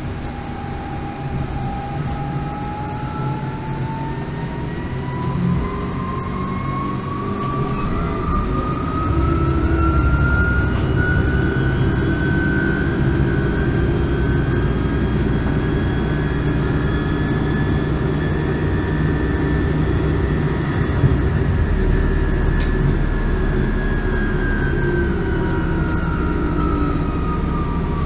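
Electric drive whine of a MAN Lion's City Hybrid bus, heard from inside, rising in pitch as the bus pulls away and speeds up, holding steady for a while, then falling as it slows near the end, over a low running rumble.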